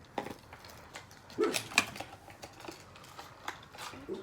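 A dog barking twice in quick succession, about a second and a half in, with light clicks of handling in between.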